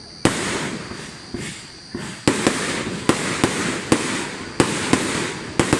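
Aerial fireworks bursting overhead: a rapid, uneven series of about a dozen sharp bangs, each followed by a short noisy trail.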